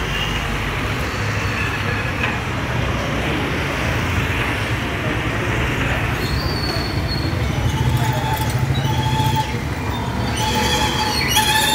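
Steady low rumble of traffic noise, with a few short high tones in the second half.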